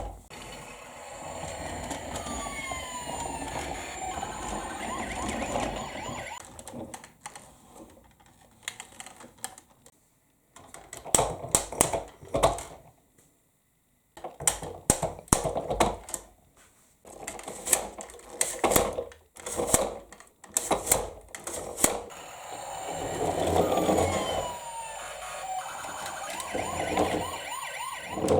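Toy emergency-vehicle minicar playing its electronic siren, a continuous wail with repeated falling tones, for about six seconds. Then comes a stretch of irregular sharp clicks and knocks, and the siren sounds again for the last several seconds.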